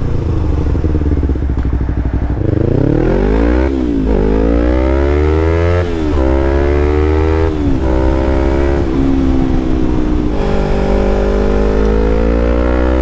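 2016 Yamaha MT-03 with an Arrow Thunder full-system exhaust, being ridden and accelerating: the revs climb and drop sharply at upshifts about four, six and eight seconds in. The engine then settles into a steadier pull, rising slightly toward the end.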